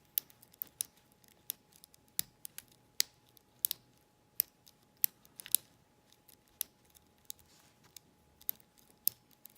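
Irregular small metallic clicks and scrapes of a hook pick working the wafers of a Corbin wafer cabinet lock under light tension, as it is single-pin picked.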